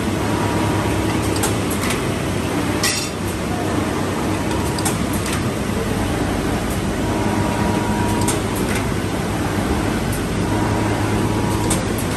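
Paper sheet collating machine running: a steady motor hum with a few sharp clicks from the mechanism as printed paper sheets feed through.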